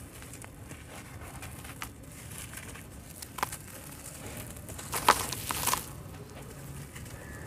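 Hands crumbling chunks of dried sand-cement into a basin of water: a few scattered gritty crunches and crackles, the loudest a pair about five seconds in, over a quiet steady background.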